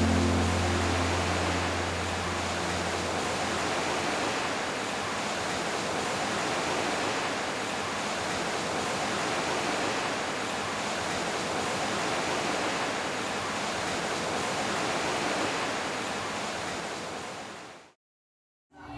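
Steady ocean surf: a continuous, even rushing of waves that fades out near the end.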